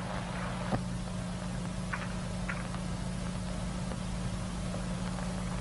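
Steady low hum and hiss from an old 1940s film soundtrack, with a few faint ticks.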